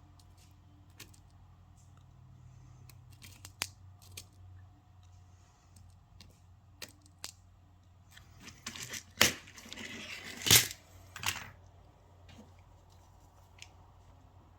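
Small hand-work noises: scattered light clicks and taps, then a louder burst of rustling or scraping with two sharp clicks about nine and ten and a half seconds in.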